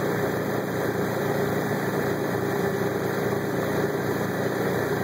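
A running engine: a steady hum that does not change.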